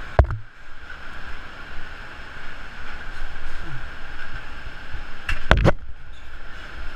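Steady rushing of wind on the microphone and the whitewater river far below, with a sharp knock just after the start and two more close together about five and a half seconds in.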